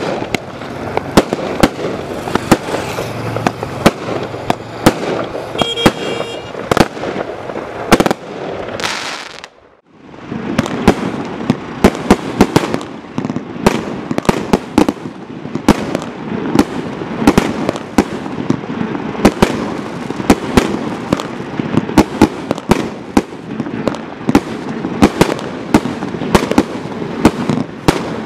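Primed Pyro 'Casino' barrage cake firing rapid shots and crackling bursts in quick succession. These fade out to a brief gap just before ten seconds in. Then the 'Roll the Dice' barrage cake starts a dense, continuous run of bangs and crackles.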